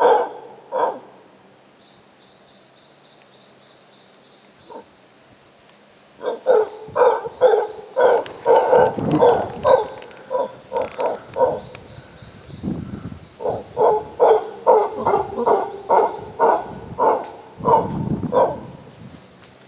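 Monkeys calling in the treetops: a long series of short, barking calls, about two or three a second, coming in two bouts with a brief pause between. Deeper, rougher calls are mixed in. The first few seconds are quieter, with a faint steady high tone.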